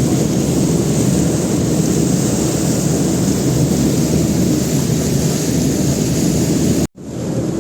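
Steady rumbling noise of a tender boat under way: its engine droning under the rush of wind and water on the microphone. The sound cuts out for an instant near the end, then carries on.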